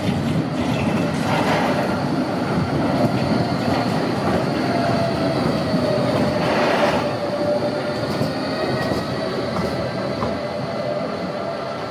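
Bombardier Cobra low-floor tram passing close on curving junction track, its wheels and running gear rumbling steadily. A faint tone drifts slightly lower over the middle of the pass, and a few clacks come as it crosses the rail junction.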